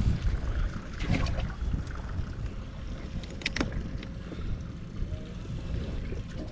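Wind rumbling on the microphone, with a few short knocks and clicks about a second in and around the middle as bass are lifted out of the boat's livewell.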